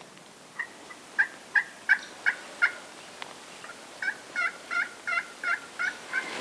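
Wild turkeys yelping: a run of about six short, evenly spaced yelps, then after a pause of about a second a second run of about seven, roughly three a second.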